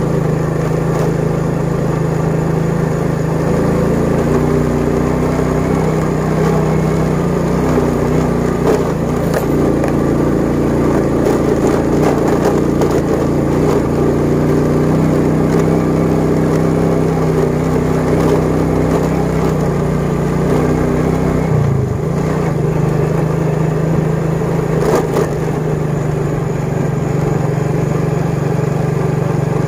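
Motorcycle engine running at a steady pitch under way, with a brief dip in pitch about three-quarters of the way through, as from a throttle change or gear shift.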